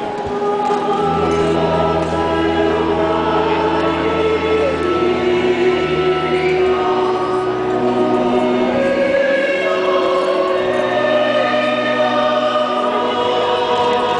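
A choir singing a slow hymn in long held chords that change every second or two, over sustained low bass notes.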